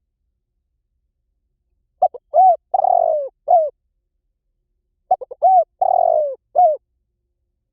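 Spotted dove cooing: two song phrases, about two and five seconds in. Each is a few quick short notes, a long drawn-out coo that falls at the end, and one short closing note, with silence between the phrases.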